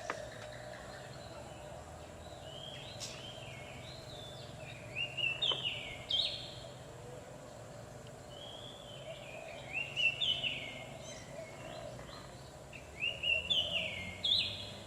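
Oriental magpie-robin (kacer) song: three phrases of quick, stepped whistled notes, starting about three seconds in, about nine seconds in and near the end, over a faint steady hum.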